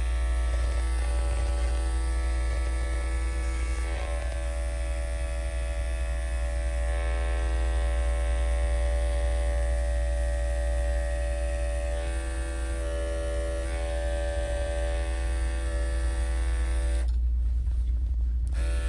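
Electric dog-grooming clippers running with a steady buzzing hum while trimming a dog's paw pads. Near the end, the higher part of the sound drops out for about a second and a half, leaving only the low hum.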